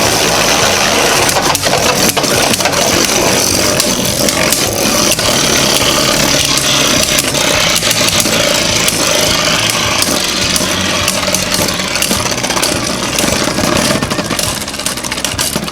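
Two Beyblade Burst spinning tops with 3D-printed metal upgrades whirring and grinding against each other in the stadium, with many sharp clicks of collisions. The sound thins out near the end as the battle finishes.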